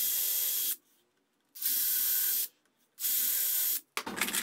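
DeWalt 20V Max cordless drill driving screws into a wooden board, run in three short bursts of just under a second each with pauses between. The screws are being run only partway in.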